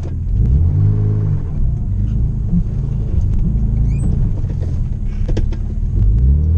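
Turbocharged BMW M20 2.5-litre straight-six in an E30 325iS, heard from inside the cabin while driving, the revs climbing about half a second in and again near the end.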